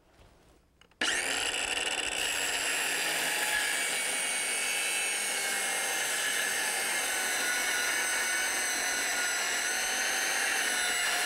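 Small circular trim saw starting about a second in and running steadily as its blade cuts a 15-degree bevel along a wooden board, guided by the saw's edge fence; a steady, high-pitched whine.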